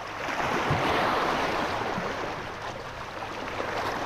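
Surf washing onto the beach: a steady rush of water that swells about a second in and eases off again.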